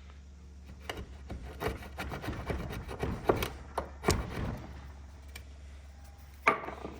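Stone and bone artifact pieces being handled and set down: a run of irregular clicks and knocks with some rubbing, then one sharp knock near the end.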